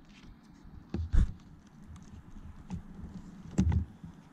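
Hands fumbling at a plastic electrical connector beneath a motorcycle's fuel tank: light clicks and rustling, with two louder knocks, about a second in and near the end.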